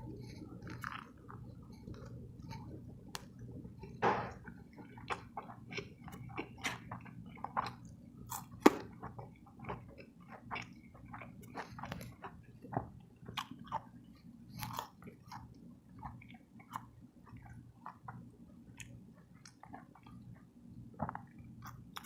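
A person chewing soft tacos close to the microphone: irregular wet mouth clicks and smacks, several a second, with one sharper click a little before the middle. A steady low hum runs underneath.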